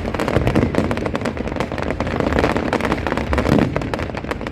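Fireworks display: a dense, continuous run of sharp cracks and bangs, many to the second.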